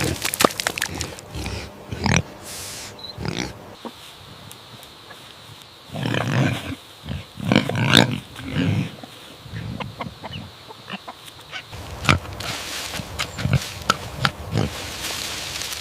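Pig grunting: a series of short grunts, loudest from about six to nine seconds in, with sharp clicking noises in between.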